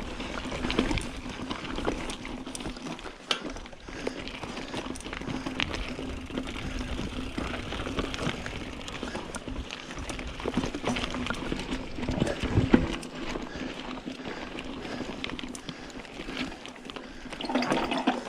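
Mountain bike ridden over a rocky dirt trail section: tyres rolling and crunching over dirt and rock, with many scattered knocks and clicks from the bike, and a faint steady low hum throughout.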